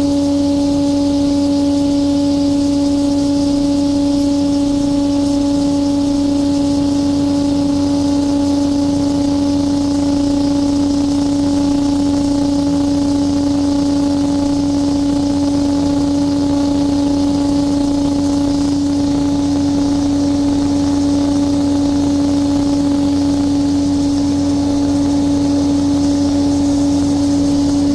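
Air-blast mist sprayer's blower fan and engine running at a constant speed while spraying pesticide over rice, a loud, steady hum with a hiss above it.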